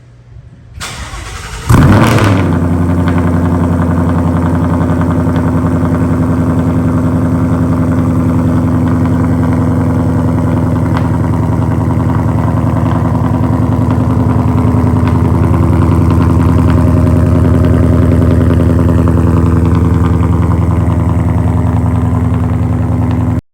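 Cold start of a V8 with catless long-tube headers and the exhaust valves open. The starter cranks briefly, the engine catches with a loud flare, then settles into a steady, loud high cold idle.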